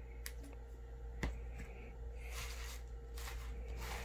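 Comic books being handled and shuffled: soft rustling with a couple of light taps, the sharpest about a second in, over a faint steady hum.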